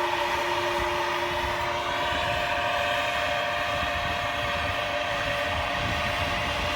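Heavy farm machinery running steadily: a constant engine rumble with a steady whine from the drive.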